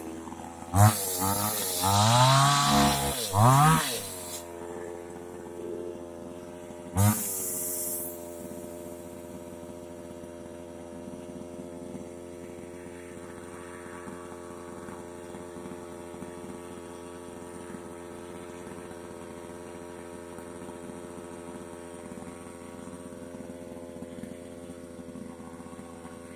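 New West two-stroke chainsaw revving hard as it cuts into a rubber tree trunk, then dropping to idle about four seconds in. It gives one short rev about seven seconds in and then idles steadily, set down on the ground.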